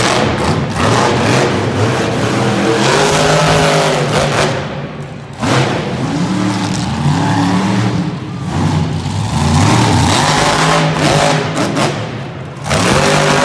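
Monster truck engine revving hard, its pitch rising and falling as the throttle is worked. The throttle drops off briefly about five seconds in and again just before the end, as the truck jumps a pile of cars.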